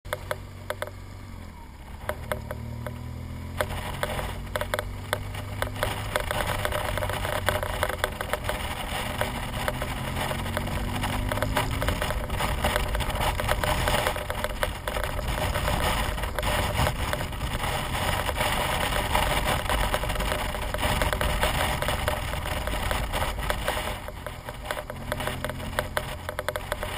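BMW R1200GS boxer-twin engine running steadily under way, its pitch rising briefly a few times as it accelerates. Heavy wind rush and crackling buffeting on the helmet camera's microphone are louder than the engine for much of the time.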